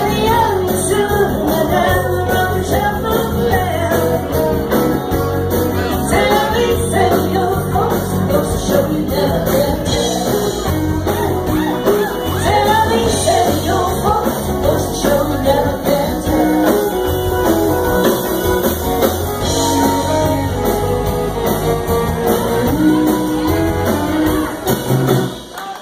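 Live rock band playing with a singer, electric guitar and drums; the song breaks off about a second before the end.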